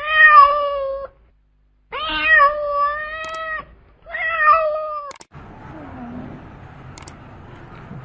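Domestic cat meowing three times: long, drawn-out meows of one to two seconds each, the middle one the longest. After about five seconds the meows stop and a quieter, steady noise follows.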